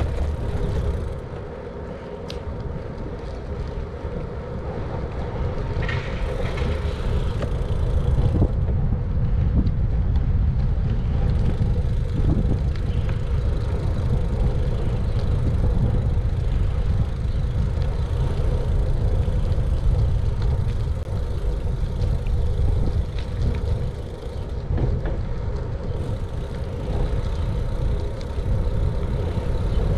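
Steady wind rumble on a bike-mounted GoPro's microphone over the rolling noise of a Surly Cross Check's tyres on pavement, with a few small knocks from bumps in the road.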